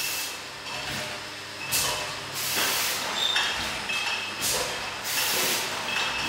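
Pneumatic hissing from a sparkling-wine bottling machine: several irregular bursts of air hiss, each about half a second to a second long, over a low steady machine noise.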